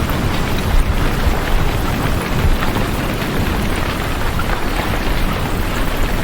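Heavy rain falling steadily: a dense, even hiss with a strong low rumble underneath.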